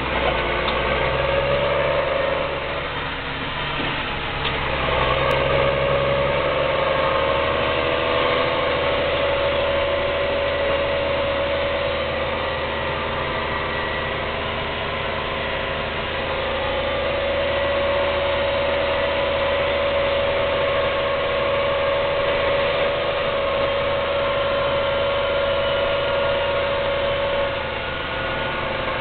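New Holland T7050 AutoCommand tractor's six-cylinder diesel engine, heard from inside the cab, running under load while pulling a full manure trailer along the road, with a steady whine over the engine note. The sound dips briefly a few seconds in, then holds steady.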